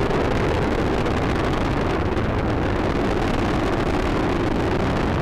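Launch noise of Space Shuttle Discovery's solid rocket boosters and three main engines as it climbs away: a steady, low rumble.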